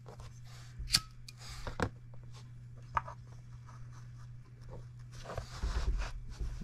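A small metal spirit burner being handled and slid into place on a wooden base under a model hot air engine's cylinder: a few light clicks and knocks, then a scraping slide about five and a half seconds in, over a steady low hum.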